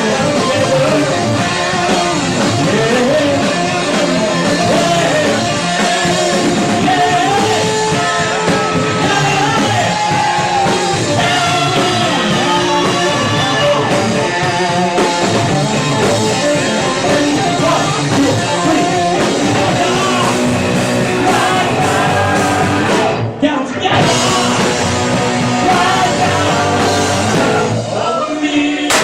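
Live rock band playing a song with sung vocals and guitar. The music breaks off for a moment about 23 seconds in, then comes back in.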